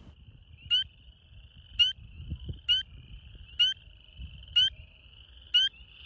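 Male spring peeper calling: six short, high-pitched whistled peeps, each sliding upward, about one a second. This is its advertisement call to attract a mate, over a faint steady background of other frogs.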